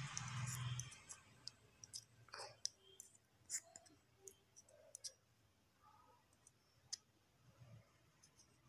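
Scattered light clicks and taps from hands handling a small emptied cream jar as homemade serum is filled into it. A low buzzing hum stops about a second in.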